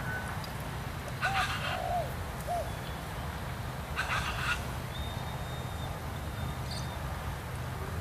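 Birds calling over the steady low hum of an excavator's diesel engine: a harsh call about a second in with a few short clipped notes after it, another harsh call about four seconds in, and a thin steady whistle a little later.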